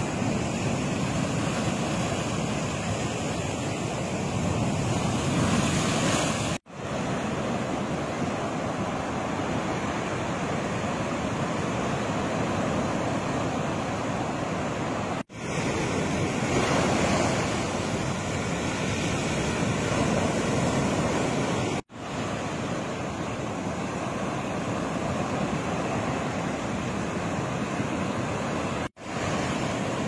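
Heavy storm surf: rough, wind-driven waves breaking and washing over a sandy beach and rock groyne, a steady rushing with wind on the microphone. The sound cuts out for an instant four times.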